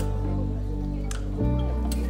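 Background music: sustained chords over a bass line with light, regular percussion ticks, the chord changing about one and a half seconds in.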